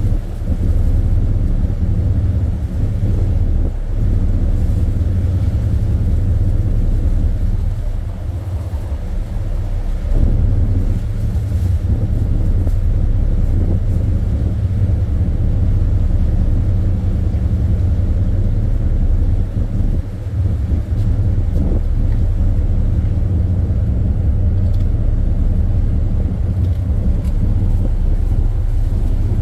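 Ship's engine machinery running: a steady, loud low rumble and hum that carries on throughout.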